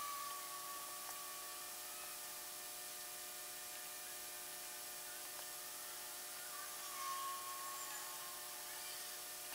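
Steady low-level hum and hiss of room tone with several faint steady tones, from sped-up audio. A brief faint whine comes near the start and again about seven seconds in.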